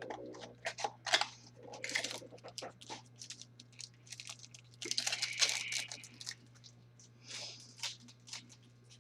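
Trading card pack being torn open and its cards handled: a run of sharp crinkles and snaps from the foil wrapper, with a longer crackling rip about five seconds in. A steady low electrical hum runs underneath.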